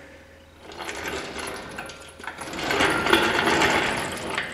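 A JEGS 1500 lb steel engine stand rolling on its swivel casters across a concrete floor. The rattling rumble starts about a second in and grows louder in the second half.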